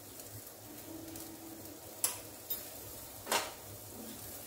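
Cooking utensils knocking against a non-stick wok of simmering soup while stirring in butter: a sharp clink about two seconds in, a fainter one just after, and a louder scrape a little after three seconds.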